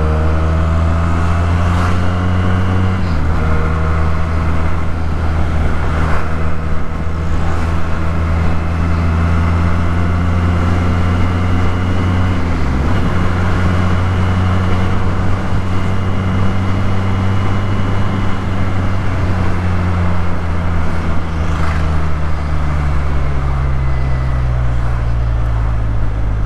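Benelli 300's parallel-twin engine running through an aftermarket Yoshimura exhaust while riding, with a steady, loud exhaust note. The note dips briefly about three seconds in and again near the middle, then slowly falls in pitch toward the end.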